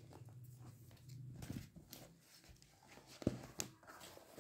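A sling bag being handled: faint rustling as the flap is lifted, with two short sharp clicks a little after three seconds as its snap button comes apart.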